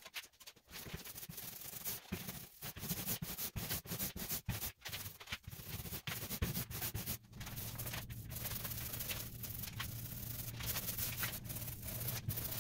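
A paint roller working thick black coating onto plywood: a sticky rubbing hiss in uneven strokes. A steady low hum joins about seven seconds in.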